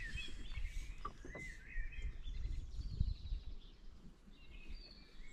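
Birds chirping in short, curving calls over a steady low rumble of breeze on the microphone, with a few soft knocks.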